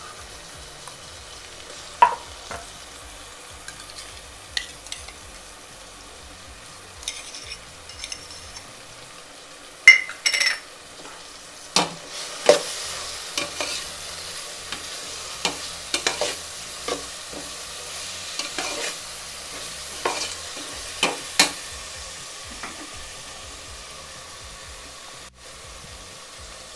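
Oil sizzling as sliced onions and ginger-garlic paste fry in a metal pot, stirred with a metal slotted spoon that clinks and scrapes against the pot now and then. The clinks come more often in the second half.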